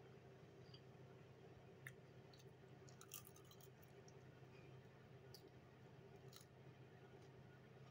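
Near silence over a steady low hum, with a few faint clicks from biting and chewing a roast chicken drumstick.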